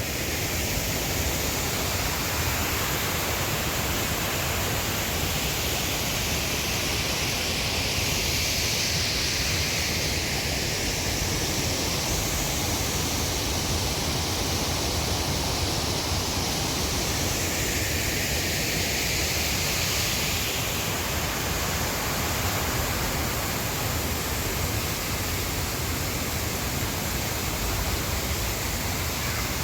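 Waterfall and fast river water rushing over rocks, a steady, even roar of falling water.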